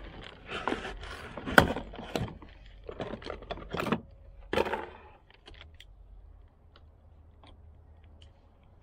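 Plastic zip ties being cut with a multitool and parts handled in a cardboard box: rustling and several sharp clicks, the loudest a snap about a second and a half in, then only a few faint ticks.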